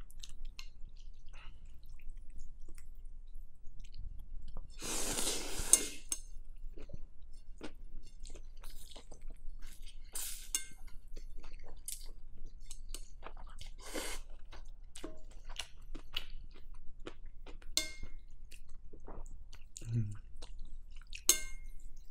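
Close-up eating of pho: two noisy slurps of rice noodles, about five and fourteen seconds in, between wet chewing and lip smacks, with small clicks of metal chopsticks against the glass bowl.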